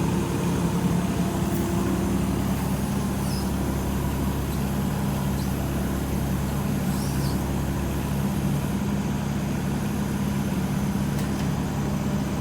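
Small excavator's engine running steadily at low throttle, an even drone.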